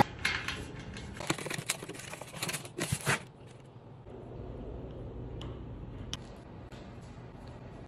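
Light clicks, taps and rustling from hands assembling a metal-mesh rolling cart and handling a caster wheel and its cardboard box. A cluster of sharp clicks comes in the first three seconds, then a couple of single ticks.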